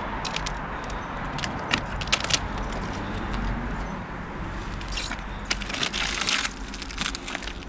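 Vinyl wrap film crinkling and crackling as it is handled and crumpled by hand, with scattered single crackles and longer stretches of crinkling about five and six seconds in.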